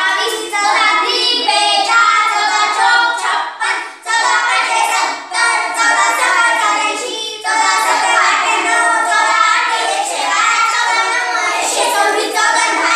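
Group of children chanting multiplication tables together in a sing-song tune.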